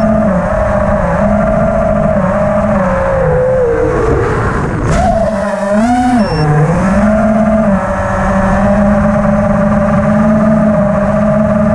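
FPV quadcopter's brushless motors whining in flight. The pitch holds, sags about four seconds in, jumps back up and dips again, then climbs near the end as the throttle changes. Wind rumbles on the microphone.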